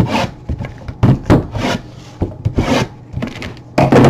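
Cardboard trading-card boxes being slid apart and scraped across a tabletop by gloved hands: several short rubbing scrapes.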